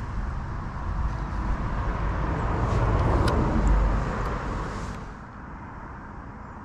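A car passing by: road noise that swells to a peak about three to four seconds in and fades away by about five seconds.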